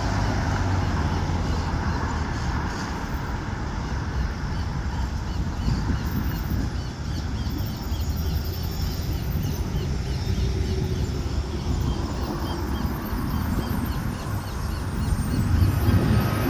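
Steady low rumble of a Boeing 737-800's jet engines heard from a distance, mixed with wind noise, starting to swell near the end. Faint bird chirps repeat over it.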